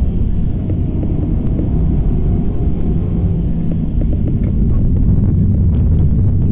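Proton Inspira's engine and road rumble heard from inside the cabin as the car slows off the throttle into a bend. The engine pulls harder again as the throttle is reapplied, and the rumble grows louder near the end.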